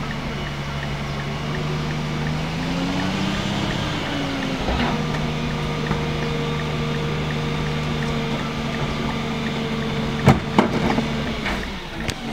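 Rear-loader garbage truck's engine revving up about two seconds in as the hydraulic cart tipper lifts and dumps a wheeled trash cart into the hopper. The engine holds a higher steady pitch, with a few sharp bangs of the cart near the end, then drops back to idle.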